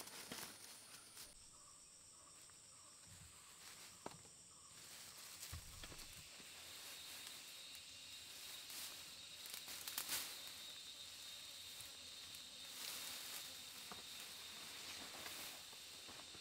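Fern fronds and leafy branches rustling as they are handled and pressed into place over a shelter, louder now and then. A steady, high-pitched drone of forest insects runs underneath.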